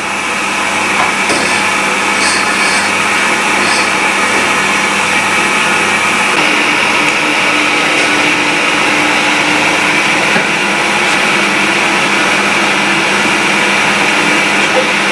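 Vacuum cleaner running steadily and loudly, a constant motor hum under a rush of air.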